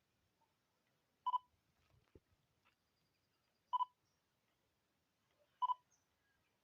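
Nikon DSLR's built-in beeper sounding three times, each a quick double beep, a few seconds apart.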